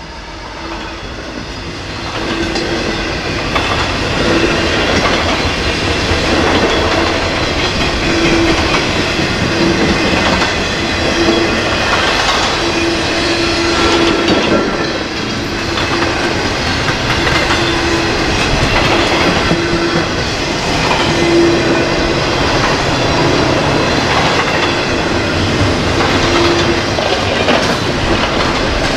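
Double-stack intermodal freight train rolling past: steel wheels clattering over the rails, growing louder over the first few seconds and then holding steady, with a tone that comes and goes.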